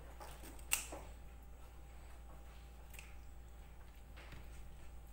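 Kitchen scissors snipping the small fins off a raw mackerel: a few sharp clicks of the blades closing, the loudest about a second in and a fainter one about three seconds in.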